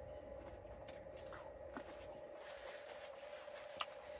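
Quiet, faint handling sounds of a taco and a paper napkin being handled while eating: soft rustles and a few small clicks, over a steady faint hum.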